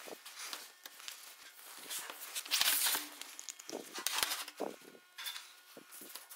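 Handling noise on sheet steel: a long steel straightedge scraping and clinking against the sheet as it is picked up and laid down, with gloved hands rubbing on the metal. The longest, loudest scrape comes about two and a half seconds in.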